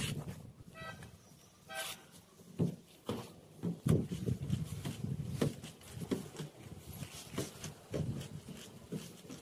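Two short vehicle-horn toots about a second apart, then scattered soft knocks.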